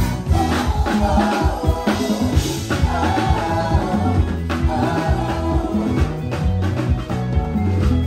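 Live band playing African praise music. A Fender electric bass plays a busy low line under hand-played congas and a drum kit, with a singer's voice on top.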